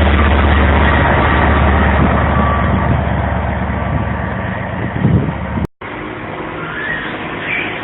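Class 67 diesel locomotive's two-stroke V12 engine running hard with a deep steady rumble as the failed train pulls away, slowly fading. It cuts off abruptly about six seconds in, followed by a much quieter steady mechanical hum.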